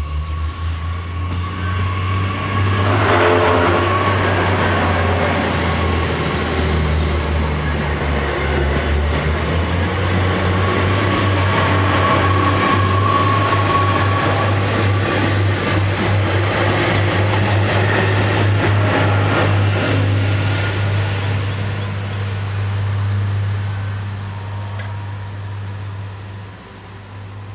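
Level crossing bells ringing steadily while an SNCF TER regional multiple unit passes over the crossing. The train's running noise and wheel clatter swell about three seconds in and fade after about twenty seconds. Near the end, as the barriers start to lift, the sound drops away.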